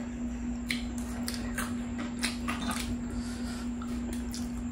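Close-up eating sounds: wet chewing, lip smacks and mouth clicks from someone eating saucy spicy food, a string of short sharp clicks over a steady low hum.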